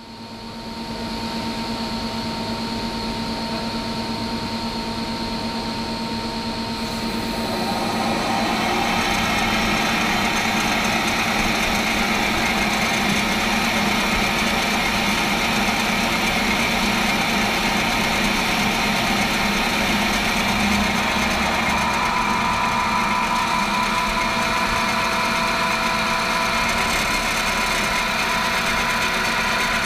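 Friction stir welding machine running steadily, its spindle turning the tool as it stirs along the butt joint of aluminium plates. It gives a constant hum with a couple of held tones, and grows louder about eight seconds in.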